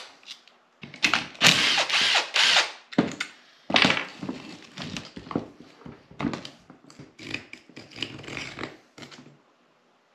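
Workbench disassembly of an electric linear actuator: a few short loud bursts about a second in, fitting a cordless drill-driver backing out fasteners, then a run of knocks, clicks and scrapes as the metal and plastic actuator housing is handled and pulled apart on the bench.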